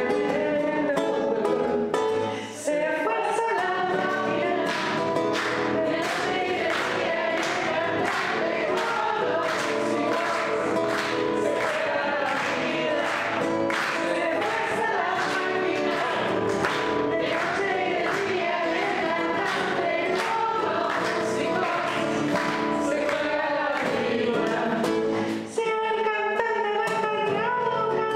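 A woman singing, with a man's voice joining in, over rhythmic nylon-string acoustic guitar strumming. The music breaks off briefly twice, a couple of seconds in and near the end.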